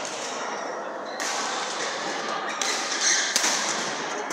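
Badminton rackets striking a shuttlecock during a fast rally: a few sharp hits, each ringing on in the hall's echo.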